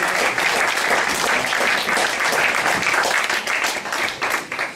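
Audience applauding, the clapping thinning out into separate claps near the end.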